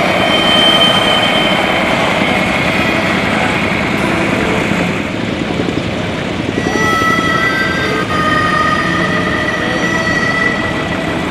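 Several vintage farm tractor engines running as the tractors drive along in a column. About halfway through the sound changes, and a few steady high whining tones sit over the engine noise.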